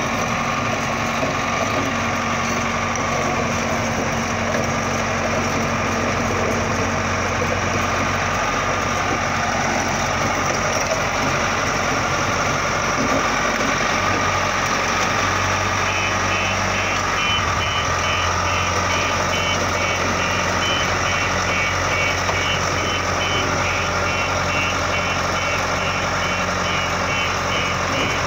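Caterpillar D3C crawler dozer's diesel engine idling steadily. Over the second half a high beep repeats at an even pace.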